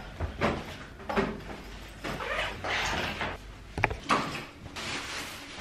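A run of short rustles and knocks from handling and movement, with a sharp click near the middle, as of a door or of gear being handled.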